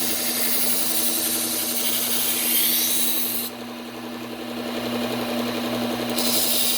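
Bucktool low-speed belt sander running with a steady hum while a kitchen knife blade is ground on its coarse Cubitron 120-grit belt to apex the edge and raise a burr. The grinding hiss stops about halfway through, leaving the motor running alone, and starts again near the end.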